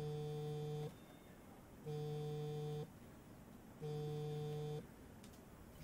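Smartphone on a desk buzzing with an incoming call: three even buzzes about a second long, each about two seconds apart.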